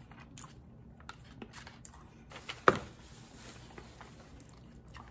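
Faint chewing and mouth clicks from eating dim sum chicken feet, with one louder click nearly three seconds in.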